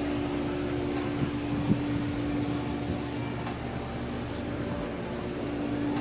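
Steady mechanical hum with a held droning tone, like a fan-driven machine running, with one brief tap just under two seconds in.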